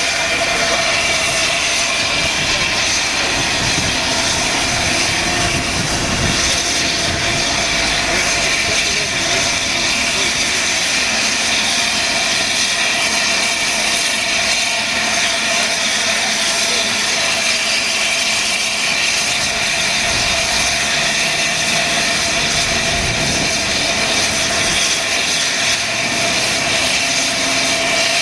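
Steam locomotive LNER Peppercorn A1 Pacific 60163 Tornado standing at a platform with steam escaping in a loud, steady roar.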